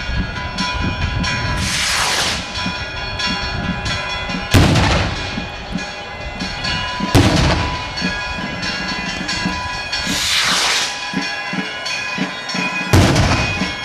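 Festival rockets going off: three sharp, echoing bangs, two of them each preceded by a rising whoosh a couple of seconds earlier, over continuous music.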